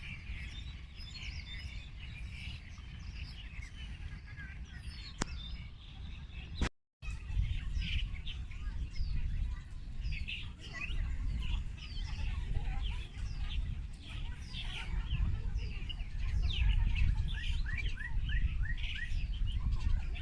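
Several small birds chirping busily, a stream of short, quick chirps, many falling in pitch, over a steady low rumble. The sound cuts out completely for a moment about seven seconds in, just after a click.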